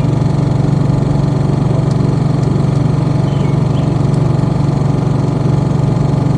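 Small portable generator engine running steadily at an even speed in its quiet 'silent' mode while it charges a battery.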